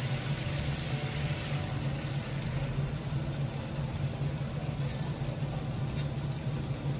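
Chapila fish in mustard sauce simmering and sizzling in a frying pan over a gas burner, with a steady low hum underneath.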